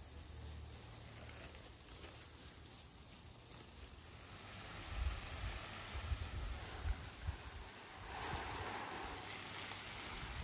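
Water from a garden hose spray nozzle showering onto trees and leaves: a steady, rain-like patter that grows louder near the end, with a few low bumps around the middle.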